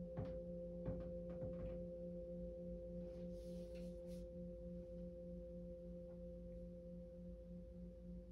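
Singing bowl ringing on with a sustained, layered tone, the lowest note wavering in a slow pulse about three times a second. A few light taps sound in the first two seconds, and a soft brief hiss comes about three seconds in.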